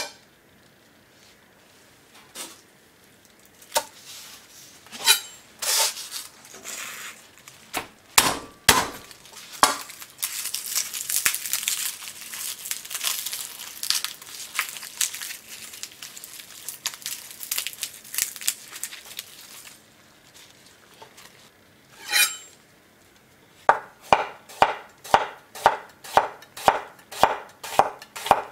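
Garlic being prepared on an end-grain wooden cutting board: a few scattered knocks on the board, then about ten seconds of crinkling as the papery skin is peeled off a clove. Near the end a chef's knife starts slicing the clove against the board in even chops, about two to three a second.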